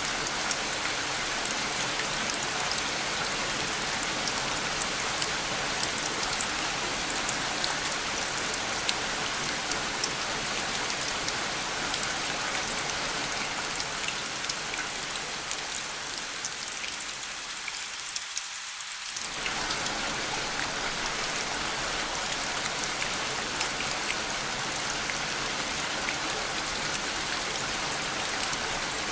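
Steady rain falling, a continuous hiss with many individual drops ticking on a surface. About two-thirds of the way through, the deeper part of the sound briefly drops away and it turns thinner and hissier for a second or so.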